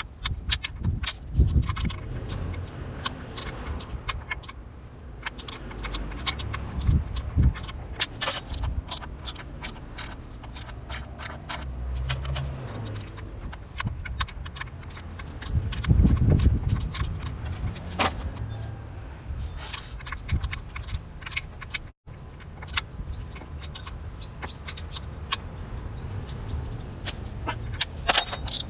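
Irregular light metallic clinks and clatter of hand tools and small parts being handled during motorcycle engine work, over a low rumble.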